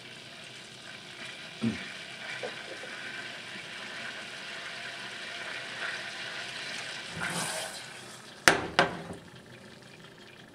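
Butter melting and sizzling in a hot pan, a steady hiss that builds and then fades. Near the end come two sharp knocks in quick succession.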